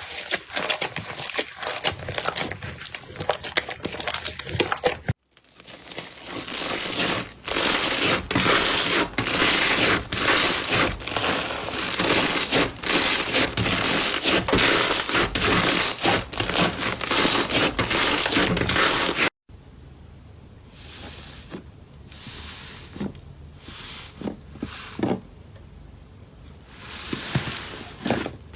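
Slime being worked by hand, with dense crackling and crinkling, in three separate takes broken by sudden cuts about five and nineteen seconds in; the middle take is the loudest.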